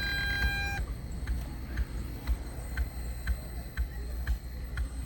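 Steady ticking, about two clicks a second, over a low hum; a high electronic tone cuts off a little under a second in.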